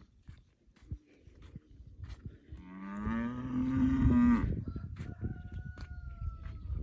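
A cow mooing: one long, low call about three seconds in that rises slightly in pitch, with scattered clicks and knocks before it.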